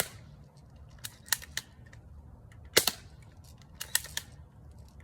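Spring-piston BB gun firing: a sharp crack at the very start and another, the loudest, about three seconds in. Several lighter clicks and knocks fall between and after the two cracks.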